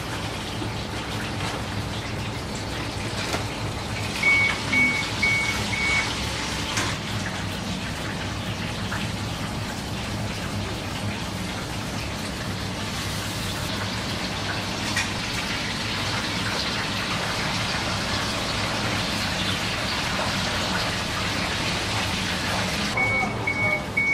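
A steady hiss with a fine crackle, a little louder in the second half, with an electronic beeper sounding in short quick series: four beeps about four seconds in and three more near the end.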